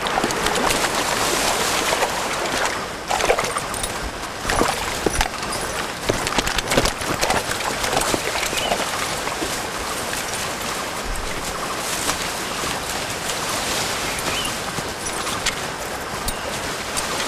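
Shallow creek running over rocks, a steady hiss of moving water, with scattered short clicks and knocks.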